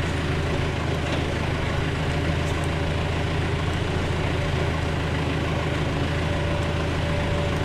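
Tractor engine idling steadily, a constant low drone.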